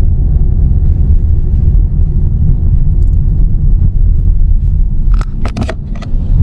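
Steady low rumble of a car being driven, heard from inside the cabin, with a few short clicks about five seconds in.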